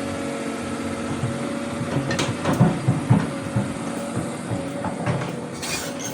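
Doosan DX200A excavator engine running steadily. A burst of heavy knocks and clatter comes about two to three and a half seconds in, with a few more knocks and a short hiss near the end.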